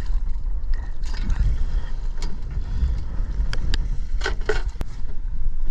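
Wind rumbling over the microphone aboard a small boat on choppy water. A handful of sharp knocks and clicks come a little past halfway, as a speargun and gear are moved about on the fibreglass deck.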